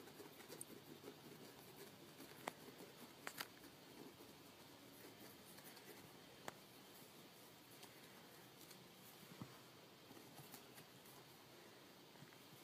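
Near silence: faint scratching and a few soft ticks as a baby armadillo's claws scrabble on a bedsheet, with a close pair of ticks about three seconds in.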